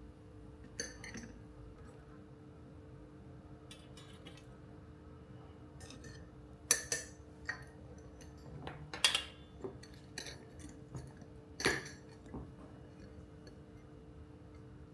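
Glassware, cutlery and dishes being handled: a scatter of light clinks and taps, the loudest three coming in the second half, over a faint steady hum.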